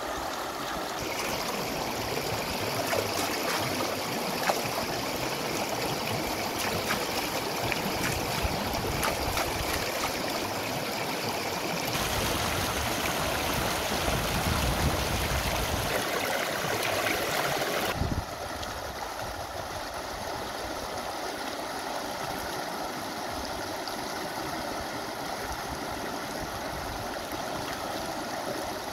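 Shallow river rushing and gurgling over rocks, a steady running-water noise that grows louder for several seconds in the middle.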